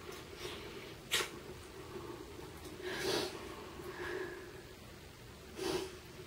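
Three short, breathy sounds, about a second in, around three seconds in and near the end, from a couple kissing and embracing, over a faint steady hum.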